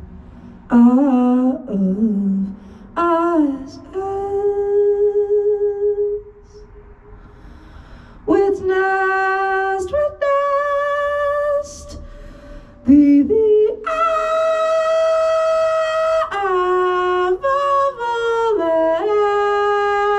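A woman singing improvised, melodic phrases into a handheld microphone, holding long notes with pitch glides between them and short pauses between phrases, reaching a long higher note near the middle.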